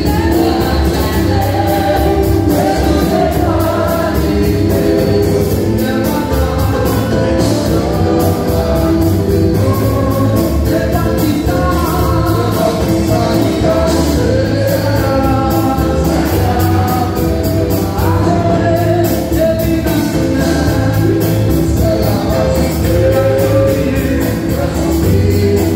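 Church worship singers, men and women, singing a Haitian Creole gospel song through microphones over amplified accompaniment with a steady beat and deep bass.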